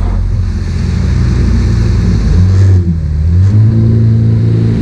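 Yamaha WaveRunner's four-stroke engine and jet pump running under way. The pitch dips briefly a little past halfway as the throttle eases, then rises and holds higher as it opens again.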